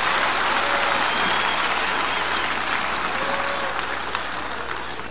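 Audience applauding, with a few voices in the crowd; the applause slowly fades.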